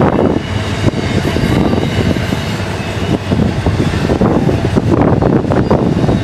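Freight train rolling past on the rails, a steady rumble with the clatter of wheels over the track.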